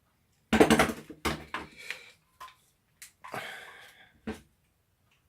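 A series of sharp knocks and rattles from a small plastic cordless screwdriver being handled and checked over, with a scraping rustle a little past three seconds in.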